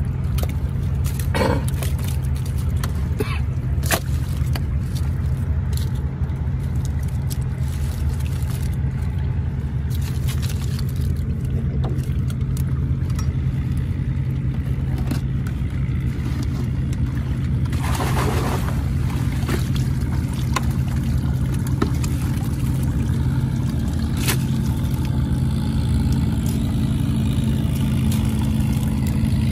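An engine running steadily with a low hum, with a few short knocks and scrapes and a brief rush of noise about two-thirds of the way through.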